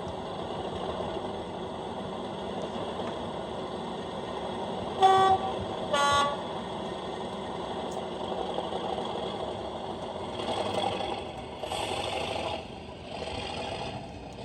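Sound decoder in an Accurascale Class 37 model diesel locomotive playing the diesel engine running sound through the model's small speaker, with two short horn toots of different pitch about five and six seconds in and the engine sound swelling briefly near the end. The sound keeps playing without cutting out, with the decoder's top volume setting (CV 63) lowered from 192 to 150.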